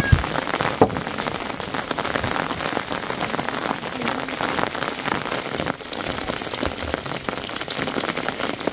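Rain mixed with hailstones pattering steadily on roofs and ground, a dense patter full of sharp ticks. Two louder knocks stand out in the first second.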